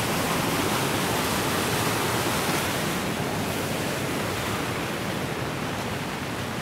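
Steady rushing hiss of rain and running floodwater. It is slightly duller in its upper range from about halfway through.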